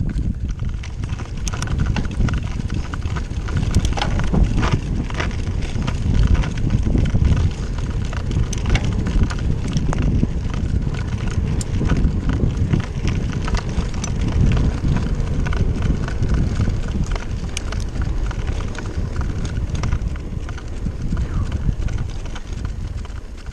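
2019 Kona Kahuna hardtail mountain bike riding a bumpy dirt trail: wind rushing over the microphone and a low tyre rumble, with scattered rattling clicks and knocks from the bike over the bumps.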